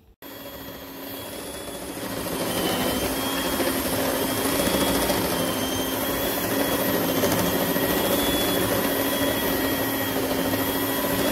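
Electric stand mixer running with its dough hook kneading bread dough in a stainless steel bowl: a steady motor whine that builds up over the first two seconds and then holds.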